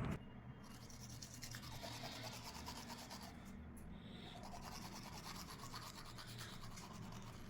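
Faint, fast scrubbing strokes over a low steady hum.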